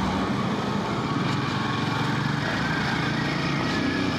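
Royal Enfield Himalayan 450's single-cylinder engine running at a steady pitch under way, with road and wind noise over the helmet microphone.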